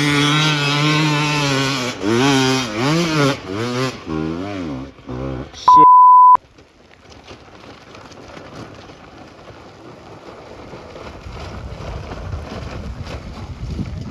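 Dirt bike engine revving hard, held steady for about two seconds and then rising and falling with repeated throttle blips before dropping away about five seconds in. A short, loud steady beep follows, then only a faint rushing noise.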